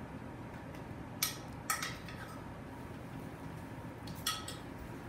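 A utensil clinking lightly against a bowl three times while roasted peppers are spooned out: two clinks close together about a second in, a third near the end, over a low room hum.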